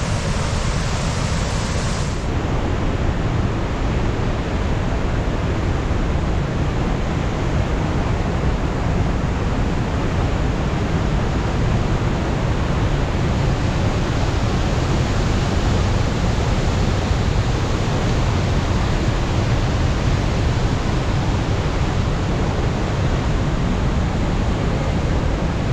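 A waterfall's falling water, heard close by as a loud, steady rushing noise that holds even throughout.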